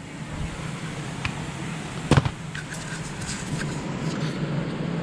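Steady low mechanical hum under a rushing noise that grows slightly louder, with one sharp knock about two seconds in.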